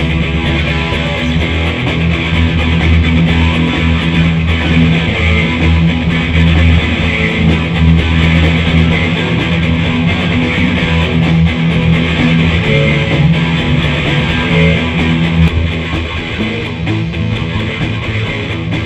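Rock riff played on electric guitar, backed by bass guitar and a drum kit.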